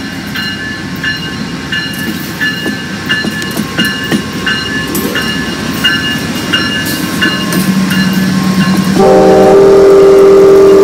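An Amtrak train hauled by GE P42DC Genesis diesel locomotives rolls past, its engines running, while a bell dings about twice a second. About nine seconds in, a locomotive air horn starts sounding a loud multi-tone chord and holds it.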